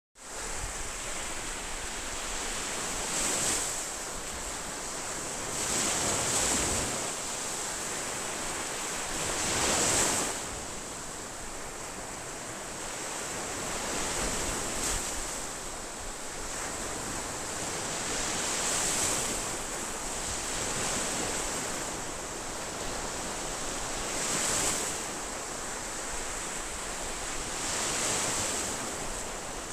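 Ocean waves: a steady wash of surf that swells louder every few seconds as waves break.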